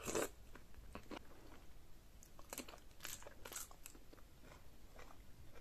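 Close-miked biting and chewing of seafood-boil food: one loud crunchy bite at the start, then sharper crunches and wet mouth clicks, bunched together around the middle.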